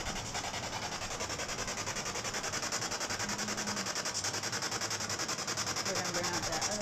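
Radio static from a ghost-hunting spirit box sweeping through stations: a steady hiss chopped into fast, even pulses, with a brief pitched snatch about three seconds in.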